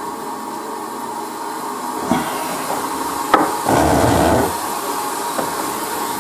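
Steady hiss of a hot-air rework pen blowing, preheating to 150 °C. Over it come handling sounds: a knock about two seconds in, a sharp click a second later, and a short rustle just after.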